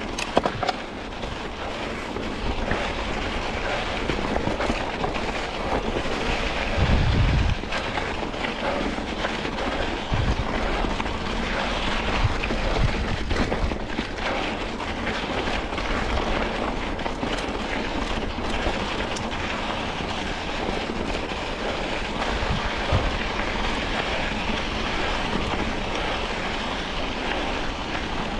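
Wind rushing over the microphone of a mountain bike rolling down a rocky dirt trail, with knobby tyres running over loose gravel and rocks and short knocks and rattles from the bike. A heavier low thump about seven seconds in.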